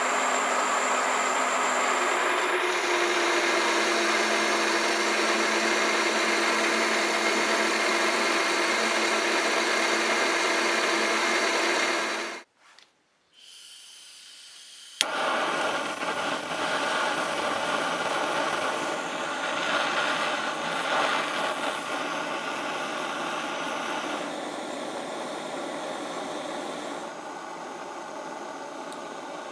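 Small metalworking machine tool running with a steady motor and gear whine over cutting noise. The sound cuts off about twelve seconds in, and after a sharp click a couple of seconds later a similar machining sound at a different pitch takes over.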